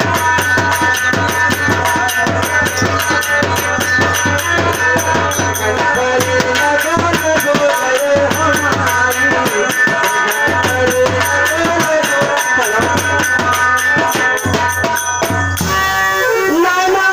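Loud music with fast drum and tabla-style percussion under a held, wavering melody, for a stage dance. About a second and a half before the end the drumming stops and the melody carries on alone.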